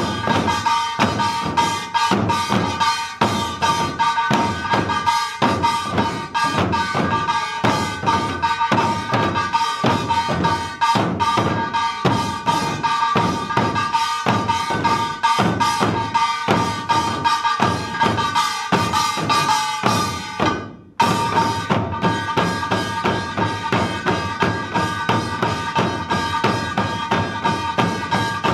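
Korean buk barrel drums beaten in a fast, driving pungmul rhythm, with the steady ringing of a small brass hand gong (kkwaenggwari) above the strokes. The playing breaks off for a moment about twenty seconds in, then starts again.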